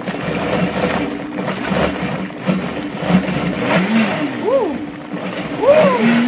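Countertop blender running steadily, blending a creamy cashew ranch dressing after fresh herbs have been added. Two short swooping tones rise and fall in the second half.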